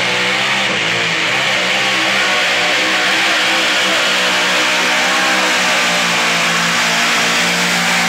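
Pulling tractor's engine running in a loud, steady drone, with a steady high hiss over it.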